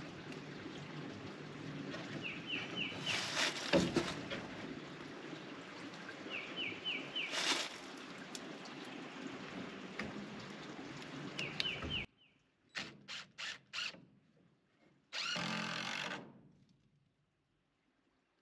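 A songbird repeats a short three-note chirp every few seconds over outdoor background noise, broken by a couple of sharp knocks. After an abrupt drop-out, four quick clicks are followed by a cordless drill running for about a second.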